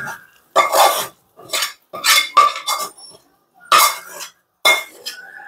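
Steel spatula scraping and clinking against a stainless steel pan and plate as a thick coconut burfi mixture is scraped out. It comes as a string of short metallic scrapes and knocks, several a second with brief gaps, each with a light ring.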